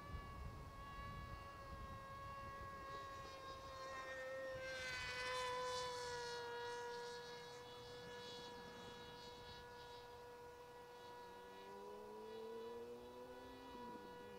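Electric brushless motor and propeller of a flying wing whining steadily in flight. The pitch drops a little about four and a half seconds in as a rush of air grows louder, and a lower tone rises near the end.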